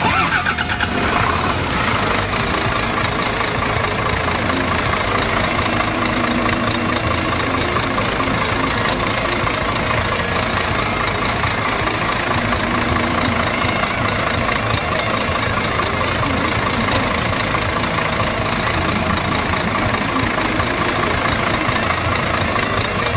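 Steady engine running sound, like a heavy machine idling, which goes on evenly throughout.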